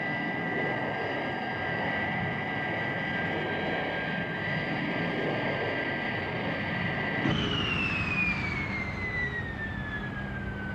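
Jet-engine sound effect of the Thunderbird 2 craft hovering: a steady high whine over a rumble. About seven seconds in it cuts to a whine that falls steadily in pitch.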